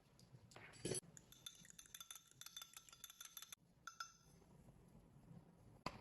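Faint clinking of a utensil against a ringing bowl, as in stirring or beating a mix. A knock comes about a second in, then a quick run of clinks for about two seconds, and one more clink shortly after.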